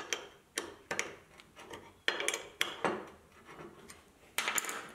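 Sharp metallic clinks and taps of a hex driver working socket-head bolts in an aluminum block, a handful of irregular strikes with short ringing and a quick cluster near the end.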